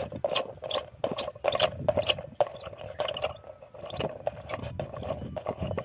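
Steel nut being turned off the threaded stud on the lid of a Mahindra 275 DI tractor's air cleaner: a quick run of scraping clicks, several a second, over a steady faint hum.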